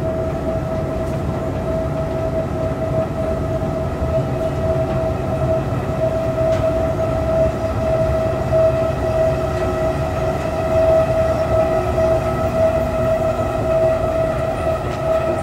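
2013 KONE escalator running under a rider: a steady whining hum over a continuous low rumble.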